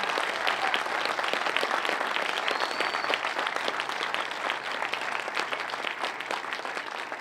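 Crowd applauding: a steady mass of handclaps that eases off near the end.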